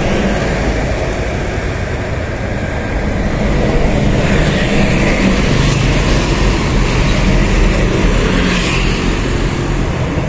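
Steady engine rumble and road noise from vehicles on the move, with two brief swells in the hiss about four and eight and a half seconds in.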